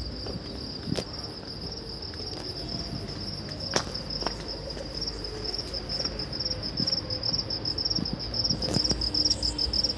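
Crickets chirping in a steady, rapidly pulsing high trill that grows louder near the end, with a few sharp knocks over it.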